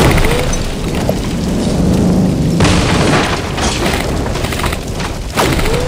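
Loud, continuous rumbling noise that starts suddenly, with a few sharper cracks mixed in, about three seconds in and again near the end.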